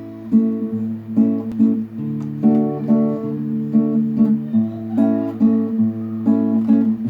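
Acoustic guitar playing chords, strummed and picked, over a bass note that changes every second or two.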